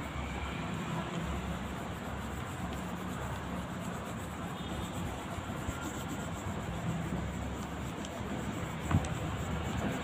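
Red oil pastel scrubbing back and forth on paper as a ladybird's shell is coloured in, over a steady low background hum. A single sharp knock about nine seconds in.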